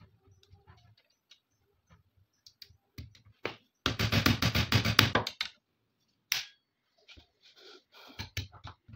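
Small steel parts of an AK-47's trigger group and receiver clicking and rattling as they are handled and fitted, with a dense run of rapid clicks about four to five seconds in and a single sharp click a second later.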